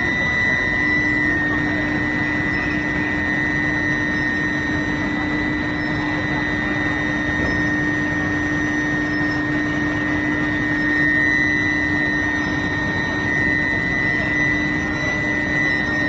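Steel billet induction heating furnace line running: a steady high-pitched whine over a steady mechanical din, with a lower steady hum that comes in about a second in.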